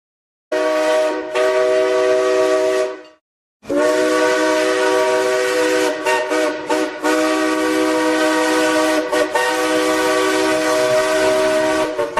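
Steam locomotive whistle sounding a chord of several steady tones: a short blast about half a second in, then after a brief pause a long blast that flickers a few times as it is held.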